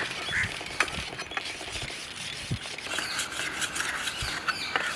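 Curved billhook (aruval) blade being scraped against a sharpening block to whet its edge: irregular scraping strokes, denser in the second half, with a few light knocks.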